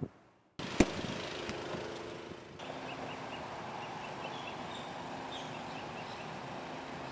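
A sharp click, then a steady hum with a few steady low tones under it, and small birds chirping over it from about three seconds in.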